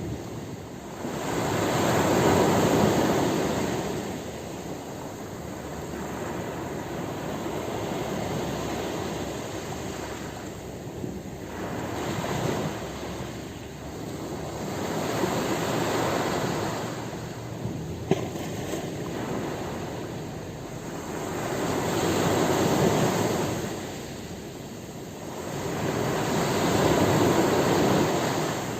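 Ocean waves breaking on a beach, each one swelling into a rushing crash and washing back. About six surges come every four to six seconds.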